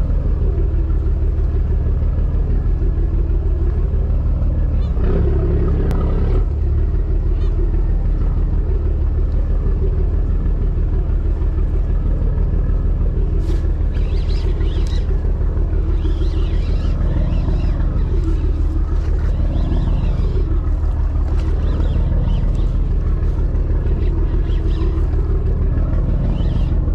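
Fishing boat's engine running steadily, a low, even rumble, with a few faint clicks about halfway through.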